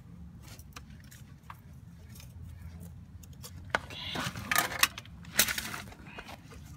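Metallic clinks and rattles of an oil filter wrench working a spin-on oil filter loose, with scattered ticks and then a cluster of sharp clanks between about four and six seconds in, over a steady low hum.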